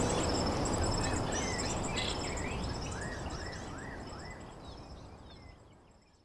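Outdoor nature ambience: insects trill steadily and high while a bird gives a quick run of about five short chirps, each rising then falling, over a low rumble. Everything fades out to silence near the end.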